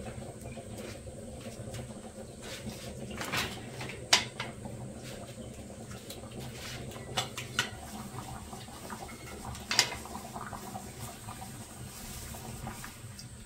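Open wood fire burning steadily under a cooking pot. A few sharp cracks and pops come from the firewood, the loudest about four seconds in.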